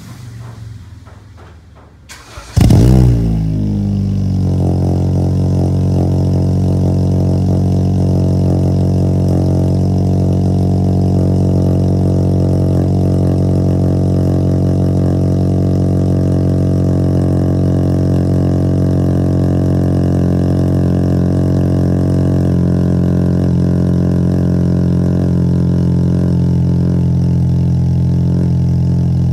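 A car engine with a straight-piped exhaust is started from cold. It catches about two and a half seconds in with a loud rev flare that quickly falls back, then settles into a loud, steady idle.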